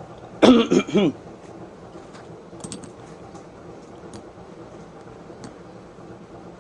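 Faint, scattered small clicks of a Beyblade spinning top's metal and plastic parts being handled and fitted together during assembly, after a brief murmur of voice about half a second in.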